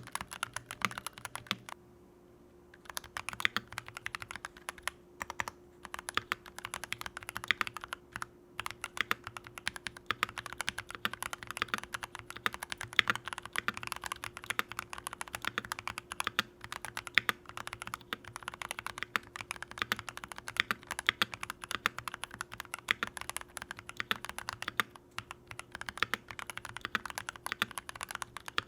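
Fast typing on a mechanical keyboard with Drop Holy Panda X tactile switches, a steady run of key clacks with a brief pause about two seconds in. A faint steady hum sits underneath.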